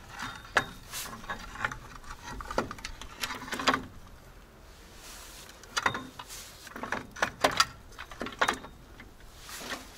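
Irregular metallic clicks and knocks of KamAZ truck drum-brake shoes being worked by hand onto the brake backing plate, the steel shoes clinking against the plate and hardware as they are pushed and shifted into place. The clicks come in clusters about three to four seconds in and again from about six to eight and a half seconds in.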